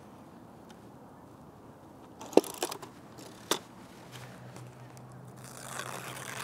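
A few sharp clicks from hands working the controls of a Mamiya RZ67 Pro II medium-format camera on a tripod, about two seconds in and again a second later. A faint steady low hum and a soft rustle follow near the end.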